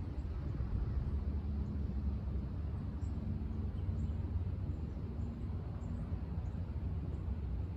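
Steady low outdoor rumble at a pond, with faint, short, high bird chirps scattered through the second half.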